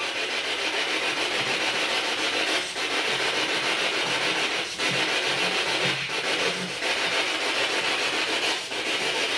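Spirit box sweeping through radio stations: a loud, steady hiss of static with a few brief breaks.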